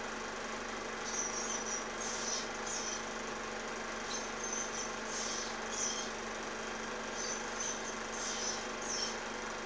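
Ospreys at the nest giving short, high-pitched chirping calls in small clusters, about one cluster every second or two, over the steady hum and hiss of an old film soundtrack.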